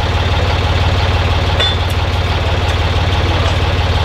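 Engine idling steadily with an even low throb. A single sharp metallic clink comes about a second and a half in.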